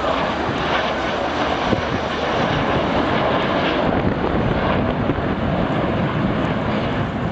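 Avro Vulcan bomber's four Rolls-Royce Olympus turbojets running in flight: a loud, steady jet noise as the aircraft passes overhead.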